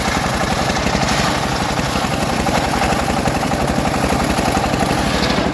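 Engine of a homemade sawmill rig running steadily at an even speed, with a fast, regular low pulse.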